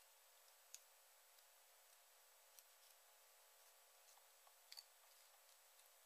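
Near silence with a few faint, sharp clicks of small parts being handled, two of them close together late on.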